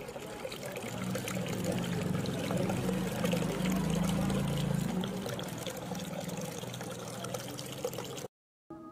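Steady rushing, splashing water like a waterfall, swelling toward the middle and easing off after about five seconds, with a low drone under it in the first half. It cuts off suddenly shortly before the end.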